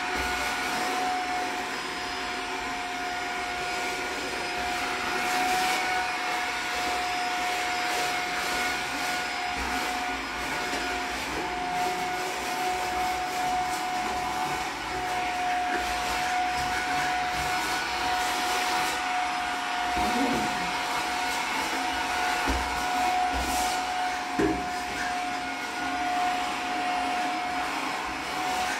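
Vacuum cleaner running steadily: a constant high motor hum over a rush of air.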